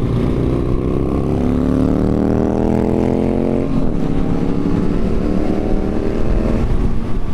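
Motorcycle engine accelerating hard through the gears. The pitch climbs steadily, drops sharply at an upshift about three and a half seconds in, climbs again, and drops at another shift near the end.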